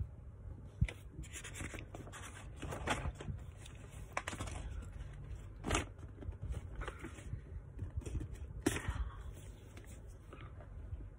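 Paper rustling and scraping in several short bursts, from pages being handled and turned.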